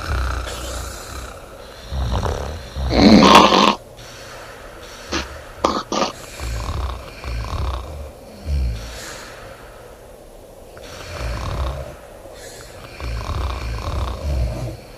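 A woman snoring loud, rumbling snores on breath after breath, the loudest and harshest about three seconds in. A few short sharp clicks come in the middle.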